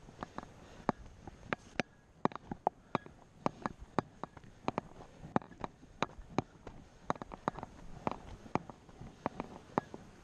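A run of irregular sharp clicks and knocks, about two to four a second, over a low background.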